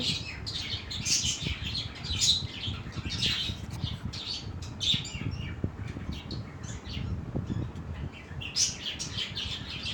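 Small birds chirping, many short high chirps coming thick and fast, over a low steady background noise.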